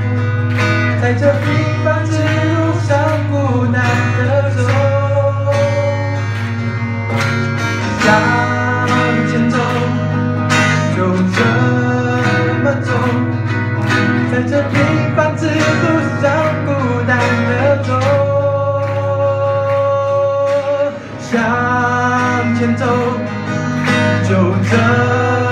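Live acoustic music: two acoustic guitars strumming, with a held, bending lead melody line over them in an instrumental passage before the vocals come in.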